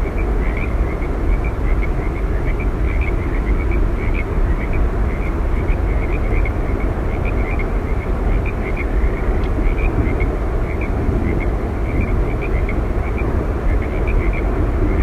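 Steady roar of Yosemite Falls, a deep rumble of falling water, with many short high chirps repeating above it, several a second.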